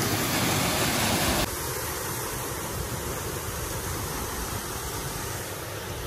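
Steady rushing of a small stepped waterfall on a forest stream, an even noise without tones. For about the first second and a half a louder, brighter hiss covers it and then cuts off abruptly.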